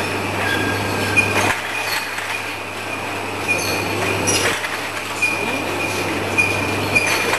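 Rotary bottle washing, filling and capping machine running, its infeed conveyor carrying amber glass bottles: a steady low hum with an on-and-off high-pitched whine and a few sharp clicks.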